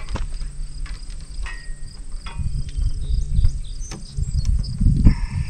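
Insects singing steadily in high, thin tones, with light clicks and rustling from red insulated wire being pulled off a coil and fed through a frame. A low rumble swells and is loudest about five seconds in.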